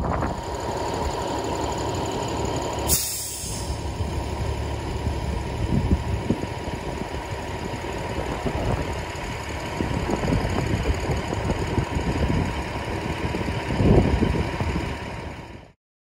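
Semi truck's diesel engine idling steadily, with a thin steady whine above it and a brief click about three seconds in. The sound cuts off abruptly near the end.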